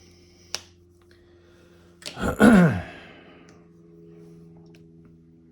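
A short, loud voiced sigh whose pitch falls over about a second, about two seconds in, after a faint click about half a second in.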